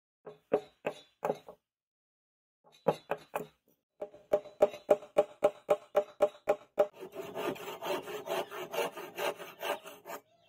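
Hammer tapping a small wooden handle block down into a brass ferrule: a few separate taps, then a quick even run of about four or five taps a second. About seven seconds in, the taps give way to steady rapid scraping strokes of a hand tool working the wood.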